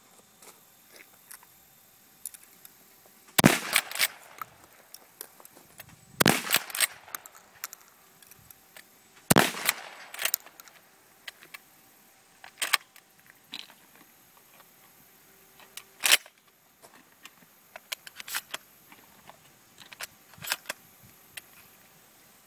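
Benelli SuperNova 12-gauge pump-action shotgun fired three times, about three seconds apart. Each shot is followed by a quick clatter of clicks, the pump being worked. Several quieter sharp clacks come in the second half.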